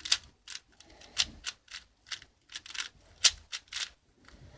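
Layers of a 4x4 twisty puzzle cube being turned by hand: about a dozen quick plastic clicks and scrapes at an uneven pace. The cube is new and not yet set up, so it turns roughly and noisily.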